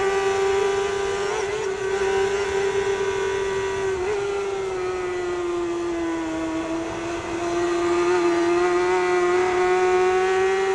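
Kawasaki superbike's inline-four engine held at high revs on full throttle, with wind rush over the bike. The engine note sags slowly in the middle, then climbs again near the end.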